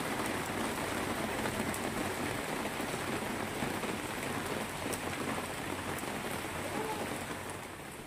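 Steady rain falling on wet paving and puddles, an even hiss with no rhythm.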